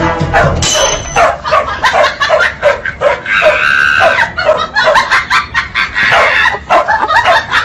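Dogs barking in a rapid run of short barks and yips, with a higher, drawn-out whine about three seconds in.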